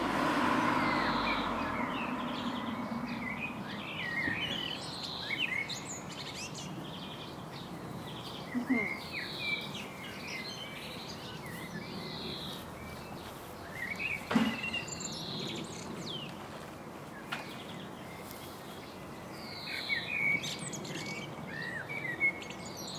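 Songbirds singing in short chirping phrases that come in several bursts, over a steady background noise. A short sharp knock sounds about fourteen seconds in.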